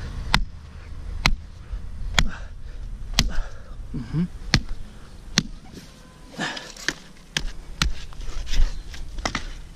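Hammer blows on wooden column formwork, about one a second, some nine sharp strikes, as the bottom of the board form is fixed in place.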